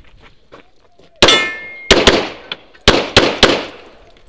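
Pistol shots in rapid fire, six in all: a single shot about a second in followed by a ringing steel target, then a quick pair and a fast string of three.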